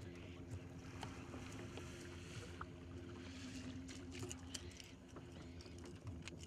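Faint, steady hum of a boat motor running.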